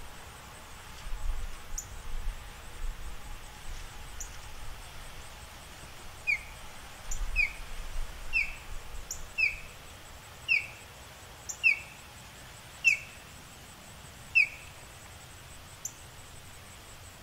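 An osprey calling: a series of about eight short, high chirps, each falling in pitch and about a second apart. The series starts about six seconds in and stops a few seconds before the end.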